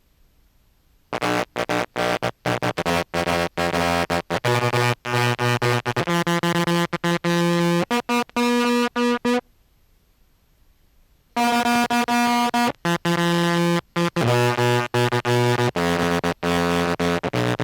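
Contrabass clarinet played through a pedal-board modulation effect set to a random waveform, so its low, buzzy notes are chopped on and off at an irregular rate like a random tremolo. It plays two phrases with a pause of about two seconds in the middle.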